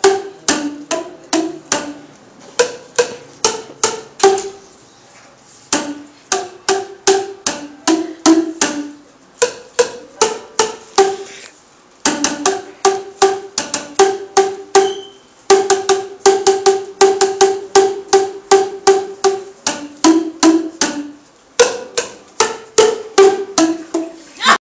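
Tuned plastic percussion tubes (Boomwhackers) struck in quick succession, playing a tune. Each strike is a hollow pitched pop, and each tube sounds its own note, the longer tubes lower. The playing pauses briefly twice.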